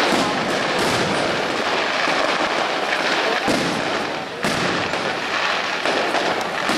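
Aerial fireworks display: a dense, continuous run of bangs and crackling from bursting shells. There is a brief lull about four seconds in, then a sharp bang.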